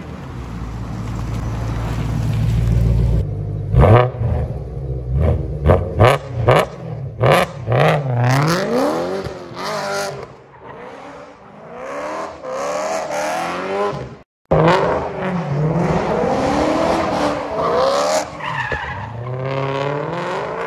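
BMW M3 E92's 4.0-litre V8 through a Bomiz exhaust with a Gintani tune. It rumbles low for a few seconds, then fires a rapid string of sharp pops and bangs. After that it revs hard and repeatedly, its note rising and falling, with tyre squeal as the car is driven hard. The sound cuts out for a moment about two-thirds of the way through.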